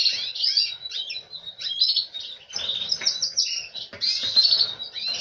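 Canaries chirping and trilling in quick high runs, with a steady high note running through them.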